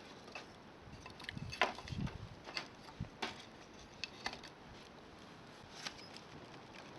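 Wood campfire crackling with scattered sharp pops, and a few dull knocks between about one and a half and two seconds in.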